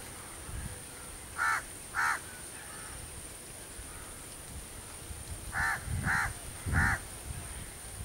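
A crow cawing off in the surroundings: two harsh caws about half a second apart, then after a pause three more in quick succession.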